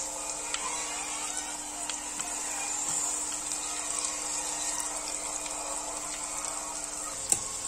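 Flour-coated chicken pieces deep-frying in hot oil in a stainless steel pot: a steady bubbling sizzle with small crackles, and a single sharp click near the end.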